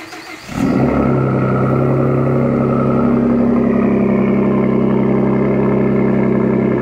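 Ford F-150 EcoBoost twin-turbo V6 cold-starting: it fires about half a second in and then runs loud and steady.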